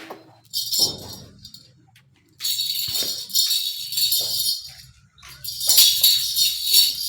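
Small bells jingling in irregular bursts, starting a couple of seconds in and again near the end.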